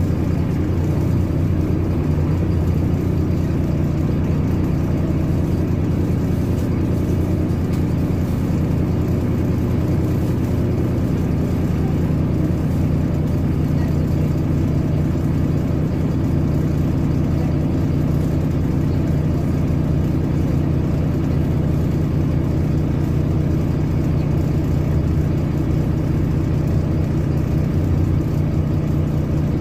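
Cummins ISBe 270B six-cylinder diesel engine of a NEFAZ 5299 city bus running steadily at low revs, heard from inside the passenger cabin as an even low hum.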